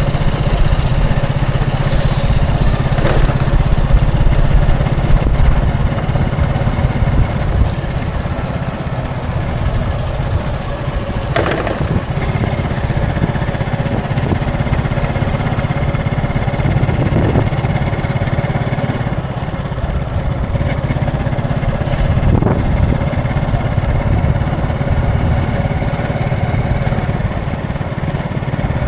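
Road traffic: a steady hum of vehicle engines, with the running of small engines close by, and a few brief sharp knocks scattered through it.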